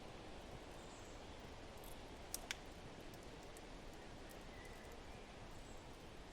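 Faint steady hiss of a wood fire in a fireplace, with two sharp crackling pops close together about two and a half seconds in.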